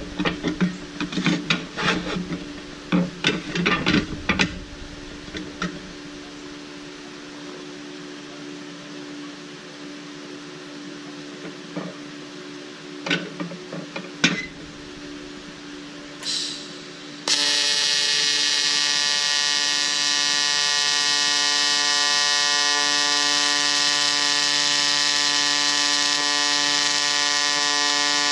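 Clicks and handling of the work over a steady welder hum, then about 17 seconds in an AC TIG arc strikes on aluminium and buzzes loudly and steadily to the end, with the AC balance set to 60.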